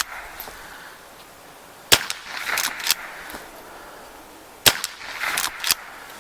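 Two shots from a Henry .22 lever-action rifle firing .22 Long rounds, about three seconds apart. Each shot is followed within a second by a quick pair of clacks as the lever is worked to chamber the next round.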